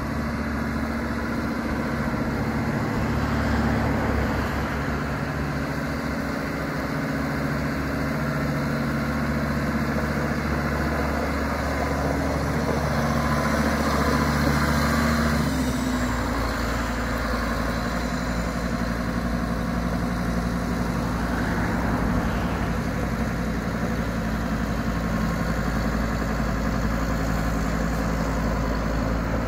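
Kubota M110 diesel tractor engine running steadily as the tractor drives, its note shifting to a different pitch about halfway through.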